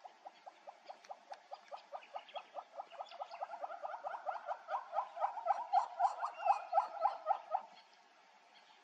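An animal call: a long run of rapid pulsed notes, about six a second, growing louder and then stopping abruptly near the end.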